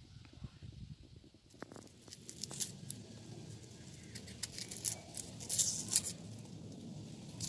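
Dry, papery onion skin crackling and tearing as it is peeled off an onion with a knife: a run of small crisp crackles and rustles starting about a second and a half in, heaviest a little before the end.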